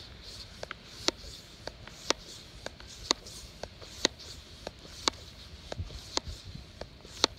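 Hand floor pump being worked steadily, about one stroke a second, pressurising the air chamber of a pneumatic antenna launcher. Each stroke gives a sharp click with a softer click in between.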